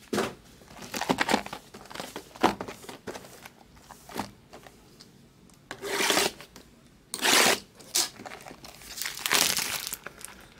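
Trading card pack wrappers crinkling and being torn open by hand, in short irregular bursts, the loudest past the middle.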